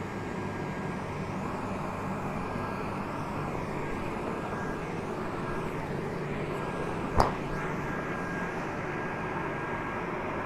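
Electric air blower running steadily, filling an inflatable PVC water slide with air, a constant hum with a rushing noise over it. A single sharp knock about seven seconds in.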